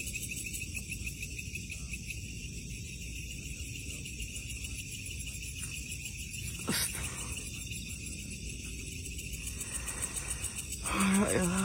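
A steady, high-pitched, finely pulsing chirr of night insects over a low rumble, with one sharp click about seven seconds in and a short voice-like sound near the end.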